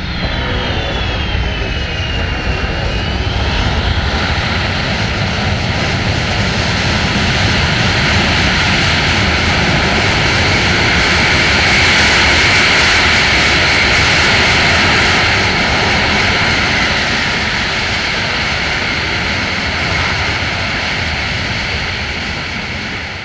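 The four Pratt & Whitney F117 turbofans of a Boeing C-17 Globemaster III running loud on the landing roll under reverse thrust. A high whine falls in pitch over the first few seconds, then the jet noise swells to a peak around the middle and eases off toward the end.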